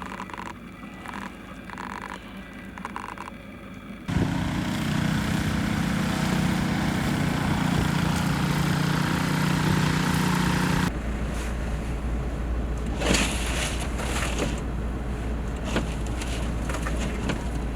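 VW T5 campervan engine running after a hard cold start as the van sets off, heard in abruptly cut pieces. A quieter stretch with a few short tones gives way about four seconds in to a loud, steady run with a low hum. That cuts off sharply about eleven seconds in to a lower rumble with scattered knocks.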